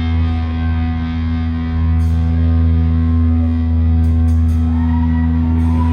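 Live hardcore band's distorted electric guitar and bass holding a steady ringing chord, with a voice-like cry rising and falling near the end.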